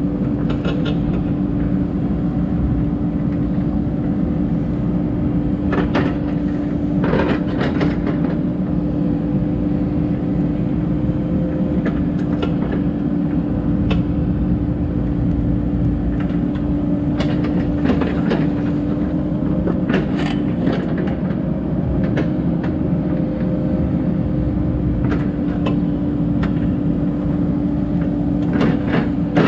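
Cat 308 excavator's diesel engine running at a steady speed with a constant hum, and scattered sharp metallic clanks and knocks from the machine at work.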